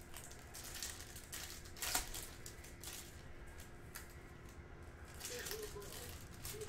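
Foil trading-card pack wrapper crinkling and cards being handled and shuffled, in irregular rustles with one sharper crinkle about two seconds in.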